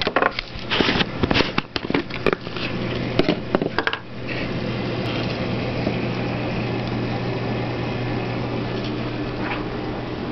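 A flurry of clicks, knocks and rattles from handling for about the first four seconds, then the steady hum and rush of reef aquarium pumps and equipment running.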